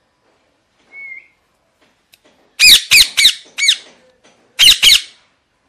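Young parakeet squawking: a faint short whistle about a second in, then a run of four loud, harsh calls and two more near the end. These are begging calls made with beak open at food held out to it.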